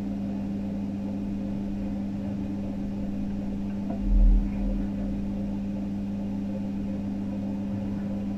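Steady machine hum holding one constant pitch, with a dull low thump about four seconds in.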